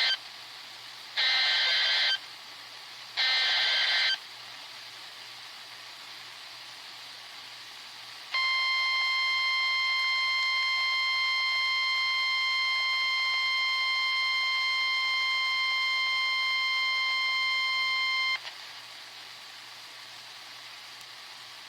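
NOAA Weather Radio Emergency Alert System header: the last of three harsh screeching data bursts, each about a second long and a second apart, then a few seconds of radio hiss, then the 1050 Hz weather radio warning alarm tone, one steady high tone held for about ten seconds and cut off suddenly, followed by hiss.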